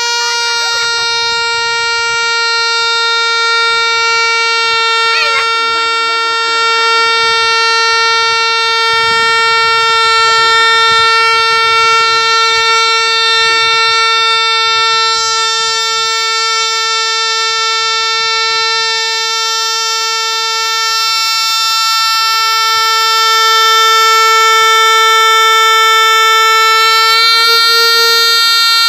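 A big balloon letting its air out in one long, steady, honking tone like a bagpipe drone, with a slight wobble in pitch near the end.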